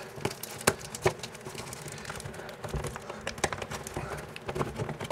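Irregular small clicks and taps of hands working inside a sheet-metal bathroom exhaust fan housing, pressing ducting tape over zip ties on the duct connection, with a couple of sharper clicks about a second in.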